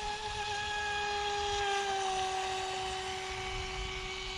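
Hosim electric RC speedboat on a 3S battery running at full throttle some way off, its motor a steady high-pitched whine that drops slightly in pitch about halfway through.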